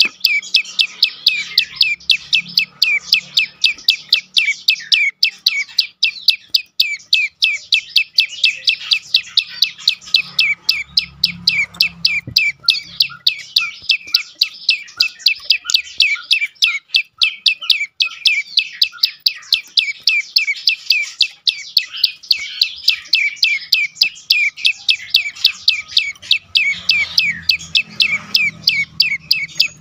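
Bar-winged prinia (prenjak lumut) calling in its fast, unbroken 'dor' series of sharp, high chirps, several a second.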